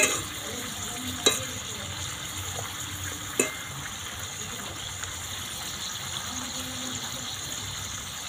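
Spice-coated potato peels deep-frying in oil in a kadai on a low flame, with a steady sizzle. Three sharp clicks of a wire slotted spoon against the pan come at the very start, about a second in, and about three and a half seconds in.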